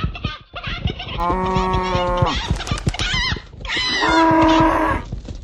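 Livestock calling: two long, drawn-out calls, one about a second in and another about four seconds in, with short knocks and clicks around them.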